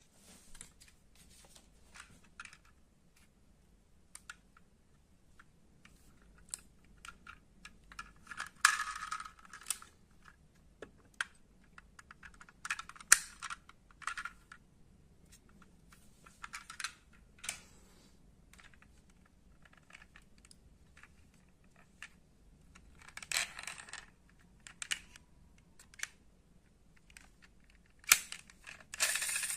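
Die-cast metal model cars being handled: scattered light clicks and short rattles of small hard parts, with a few louder knocks now and then.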